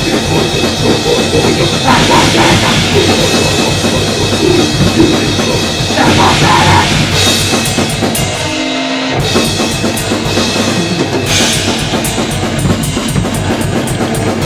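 Goregrind band playing at full volume: a fast drum kit with bass drum and cymbals driving dense, heavy rock instrumentation. The band drops out for a moment about halfway through, and a run of quick cymbal strikes comes near the end.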